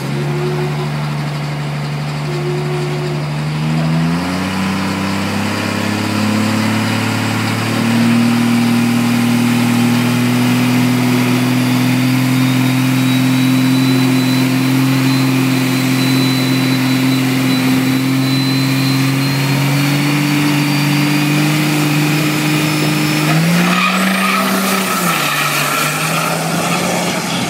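A 6.7L Cummins inline-six turbo-diesel drag truck runs loud at the line. Its engine note steps up about four seconds in and holds steady, while a high turbo whistle climbs slowly above it. Near the end the engine note changes sharply as the truck leaves down the strip.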